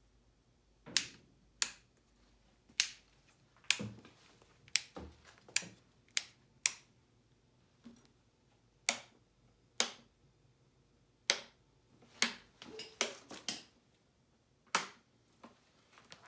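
A series of sharp clicks and taps at irregular intervals, with a quick cluster of them about three-quarters of the way through.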